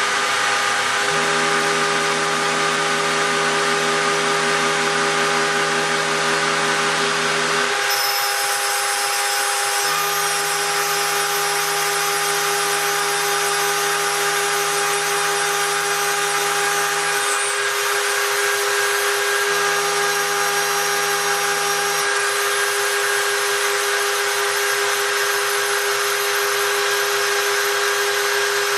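Spindle of a home-built CNC gantry router running steadily with a constant whine while it engraves brass. Underneath, a lower hum switches on and off every few seconds as the machine's moves change.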